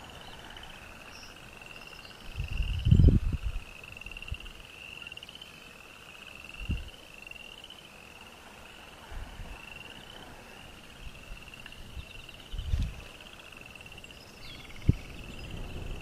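A chorus of frogs trilling, a steady string of short high trills one after another. Several low rumbling thumps come through it, the loudest about three seconds in.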